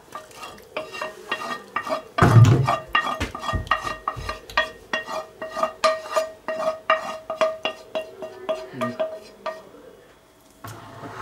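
A spatula scraping and knocking against a frying pan tipped over a stainless steel pot, emptying the deglazed pan contents into it, with the metal ringing after the strikes. It is a quick run of taps and scrapes, with one heavy knock about two seconds in, and it stops shortly before the end.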